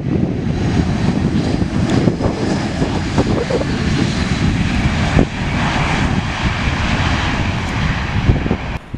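Jet engines of an easyJet Airbus A320-family airliner rolling fast along the runway after touchdown with its spoilers raised: a loud, steady jet rush that swells in the middle, with wind buffeting the microphone.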